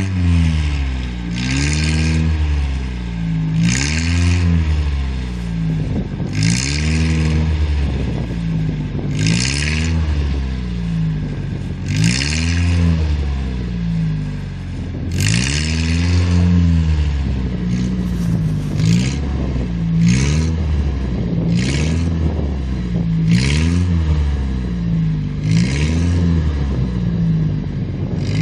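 A 1991 Ford Ranger two-wheel-drive pickup's engine revved again and again, about a dozen times, each rev rising and falling in pitch, with a short hiss at the top of each rev as the driven wheels spin in deep icy snow: the truck is stuck and is being rocked to get it free.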